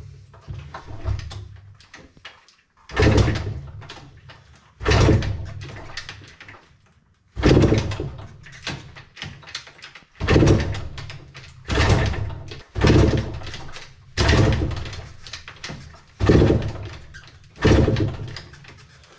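Yamaha DTR 125 two-stroke single being kick-started over and over: about nine kicks, one every second or two, each a sharp mechanical thump as the engine turns over and dies away without catching. It won't start because its fuel had been shut off and the carburettor drained.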